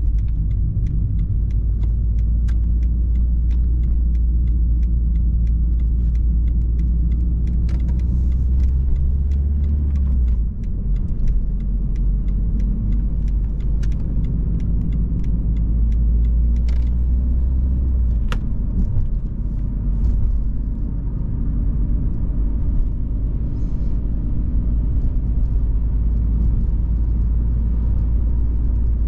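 Volvo V40 being driven, heard from inside the cabin: a steady low engine and road drone that shifts twice, around 10 and 18 seconds in, with many small clicks and rattles throughout.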